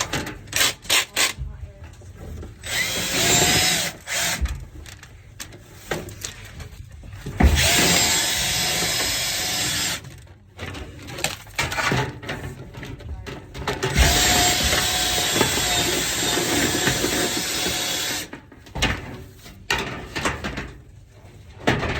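Power drill running in three bursts, the longest about four seconds, spinning a rotary brush through a dryer vent duct, with knocks and rattles in between.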